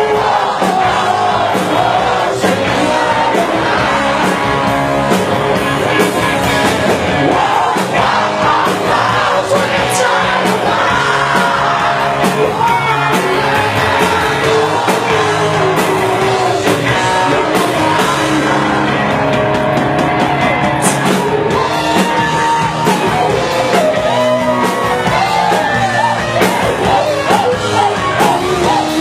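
Rock band playing live, with a singer over the band and yells from the audience now and then.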